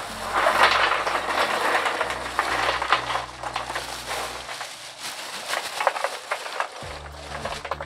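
Crunching, crackling handling noises with many irregular sharp clicks, loudest in the first three seconds, over background music with a low bass line that drops out for a couple of seconds past the middle.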